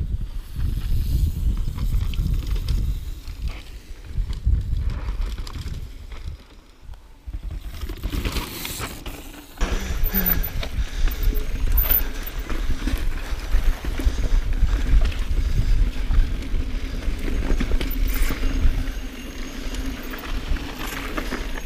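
Intense Tracer mountain bike ridden down a dusty dirt singletrack: wind rumbling on the camera microphone over the hiss of tyres on loose dirt, with small clicks and rattles from the bike. It dips quieter partway through, then turns suddenly louder just under halfway.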